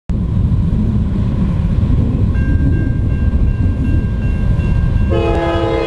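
Norfolk Southern freight locomotive's horn as the train approaches, over a steady low rumble. A faint high steady tone starts about two seconds in, and a loud multi-note horn chord sounds near the end.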